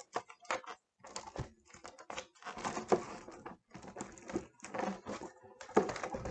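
Irregular rustling, clicking and rubbing of hands working a latex 260Q twisting balloon at the neck of an air-filled foil balloon.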